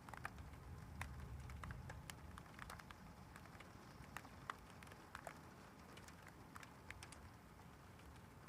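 Faint rain during a thunderstorm: scattered drops ticking and pattering at irregular intervals over a low, steady rumble.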